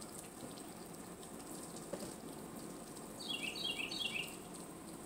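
A bird chirping three quick times, each chirp stepping down in pitch, a little past halfway through, over a faint steady background hiss.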